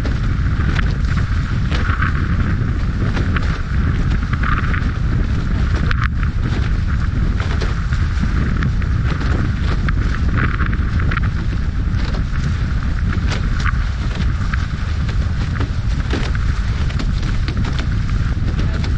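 Strong wind buffeting the microphone in a steady heavy rumble, over the hiss and irregular splashes of spray from an F16 Viper catamaran's hulls cutting through choppy water at speed. A single sharp click about six seconds in.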